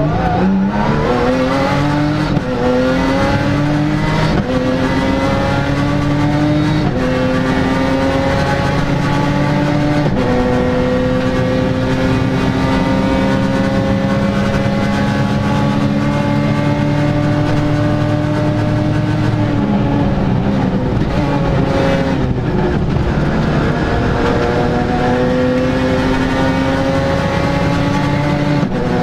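Rally car engine under hard acceleration, climbing in pitch through quick upshifts in the first ten seconds, each shift dropping the note. It then holds near flat out for about ten seconds, eases off and falls in pitch around twenty seconds in, and pulls hard again near the end.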